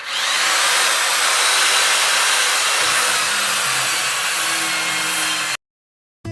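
Electric power sander running on a wooden board: a steady hiss with a faint motor whine, cutting off suddenly about five and a half seconds in.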